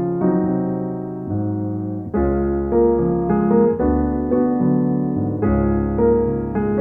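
Background music: sustained electric piano chords with a low bass line, changing every second or so.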